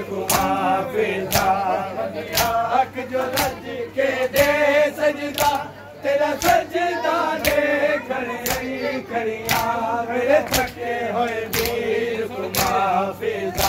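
Men chanting a Punjabi noha in chorus, marked by sharp hand strikes of matam (chest-beating) about once a second.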